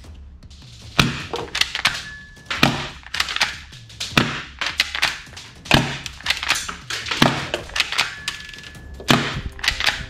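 Plastic toy pistol being handled and taken apart by hand: irregular hard plastic clicks, snaps and knocks, several a second, over quiet background music.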